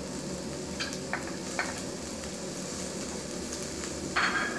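Onions, garlic and mustard seeds frying in oil in a stainless steel pot, sizzling steadily as fresh curry leaves go in. A few light clicks come about a second in, and a brighter knock with a short ring comes near the end.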